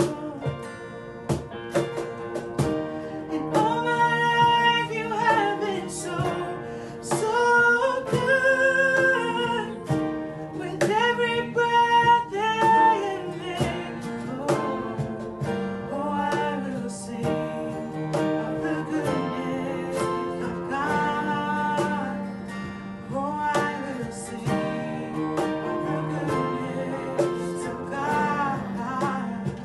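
Live worship song: acoustic guitar strumming and keyboard chords under sung melody lines.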